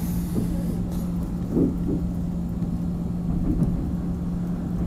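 Running noise inside a 24-series sleeper carriage as the train rolls slowly: a steady low rumble under a constant hum, with a few soft knocks from the wheels on the track.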